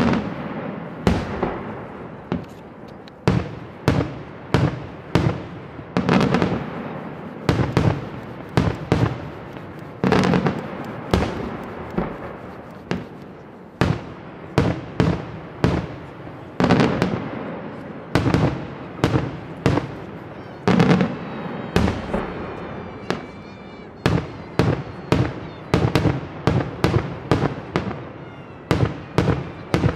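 Daytime fireworks display: aerial shells bursting in a rapid, irregular barrage of loud sharp bangs, one to three a second and sometimes bunched together, each followed by a rolling echo.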